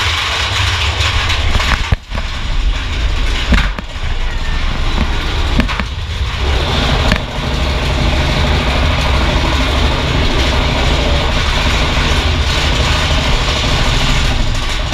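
Mine-train roller coaster rumbling and rattling along its track, heard from aboard, with a few sharp clacks in the first half.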